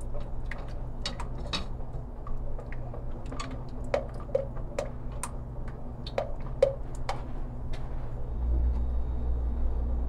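A utensil stirring a thickening cream sauce in a saucepan, making irregular clicks and taps against the pot, some with a short ring. A steady low hum runs underneath and grows louder near the end.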